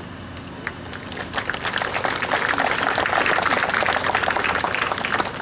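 Crowd applauding: a dense patter of many hand claps that swells about a second in and dies away near the end.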